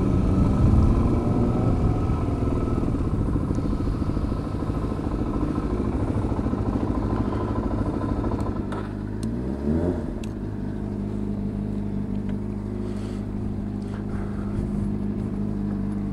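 Dual-sport motorcycle engine running under way with wind noise, then slowing; about ten seconds in the engine revs up briefly and settles into a steady idle.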